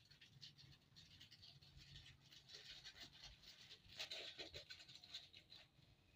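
Near silence: faint scratchy rustling and ticking over a low hum, a little louder about four seconds in.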